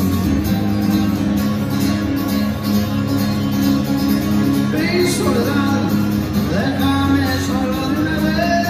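Acoustic guitar played live, a steady strummed accompaniment, with a higher melody line that bends in pitch coming in about five seconds in.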